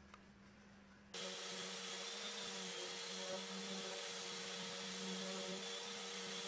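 A random orbital sander with a dust-extraction vacuum on its hose starts suddenly about a second in, then runs steadily over an oak slab: an even hiss with a steady hum underneath.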